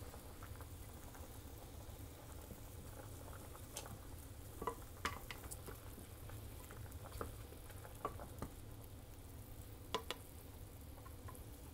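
Pork neck bones blanching in a stainless-steel pot of boiling water: a steady low bubbling rumble, with a wooden spatula stirring and knocking against the bones and the pot in a few short sharp clacks, a close pair near the end.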